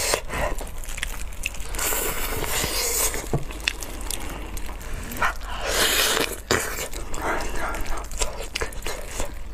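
Close-miked eating sounds of braised pig's trotters being torn apart by gloved hands and chewed: sticky, wet tearing with many small clicks and crackles. Two breathy hisses come about two seconds in and about six seconds in.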